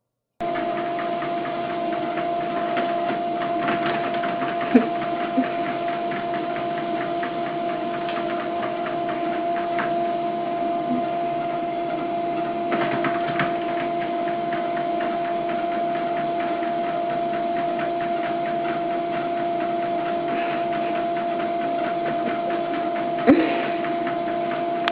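A steady mechanical hum with a constant whining tone, starting and cutting off abruptly, with a few faint clicks.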